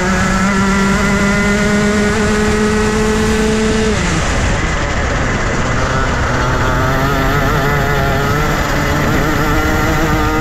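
Junior Rotax 125cc two-stroke kart engine running on track. Its pitch climbs steadily under throttle, falls sharply about four seconds in, then climbs again.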